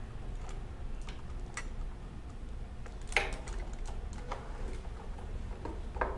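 Small clicks and plastic handling noises as SATA power and data cable connectors are lined up and pushed onto a hard drive's ports, with a sharper click about three seconds in and another near the end, over a steady low hum.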